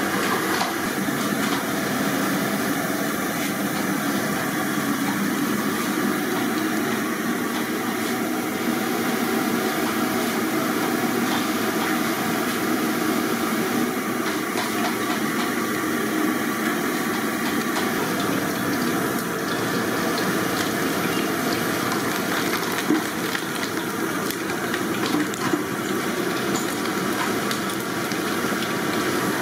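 Batch of cut potato sticks deep-frying in a full iron kadai of hot oil: a steady, dense sizzle and bubbling. A couple of sharp knocks near the end, from the steel ladle against the pan.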